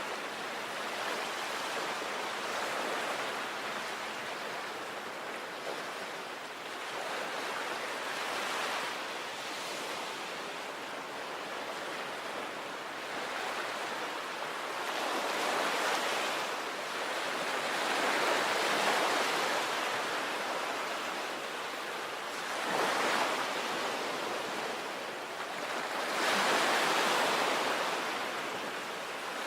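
Sea waves breaking and washing on a beach, a continuous rush of surf that swells and ebbs every few seconds, with the strongest surges in the second half.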